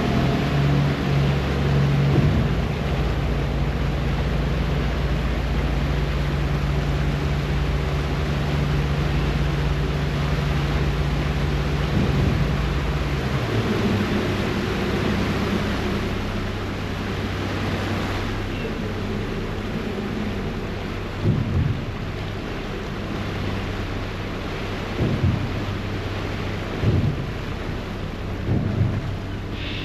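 Ferry engine droning steadily under the rush of churning wake water and wind, the engine note dropping and settling lower about halfway through. A few brief low thumps come in the second half.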